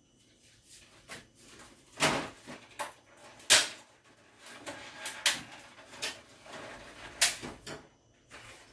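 Kitchen things being handled: a string of sharp knocks and clatters, about eight in all, the loudest about three and a half seconds in.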